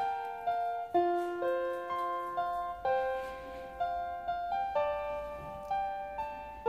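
Background piano music: a slow melody of single struck notes over held lower notes, each note fading after it is played, at about two notes a second.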